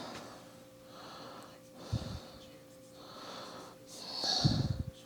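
A man breathing audibly through his nose close to the microphone, a soft breath every second or so. A low bump about two seconds in and a louder bump near the end, from handling.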